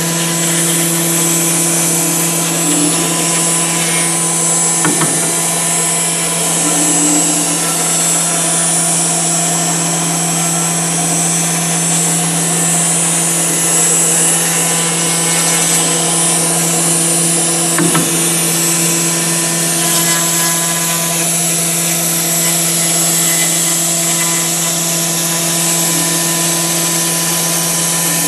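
CNC router spindle running steadily while its bit carves a foam block: a constant hum with a hiss over it. Two brief clicks, about five seconds in and again near eighteen seconds.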